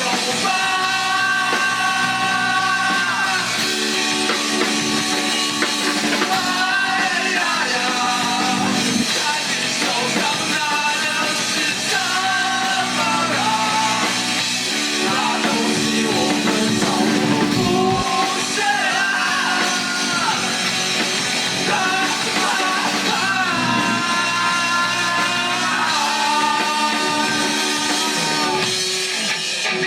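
Live rock band playing loudly: electric guitars, bass and drum kit, with a vocal line sung over them.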